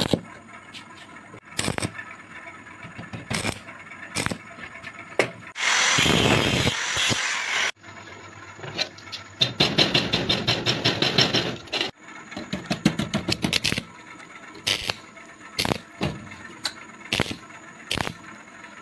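Metalworking noises: sharp metal knocks every second or two, a steady burst of power-tool noise lasting about two seconds, then a fast rattling pulse for a few seconds.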